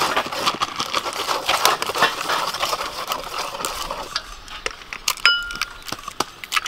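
Wire whisk stirring flour and egg batter in a stainless steel bowl, a rapid scraping and clinking, for about the first four seconds. Then come scattered taps and clicks as eggs are cracked into the bowl, with a brief ringing tone a little after five seconds.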